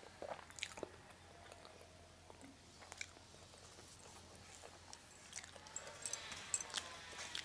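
Close-miked chewing of a mouthful of rice and curry, with scattered soft mouth clicks and smacks.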